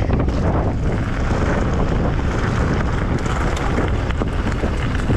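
Wind buffeting the microphone as an e-mountain bike runs fast down a loose gravel trail, with tyres crunching and many small knocks and rattles from the bike over the stones.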